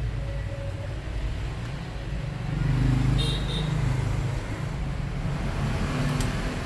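Steady low rumble of passing road traffic, swelling about three seconds in, with a faint click near the end.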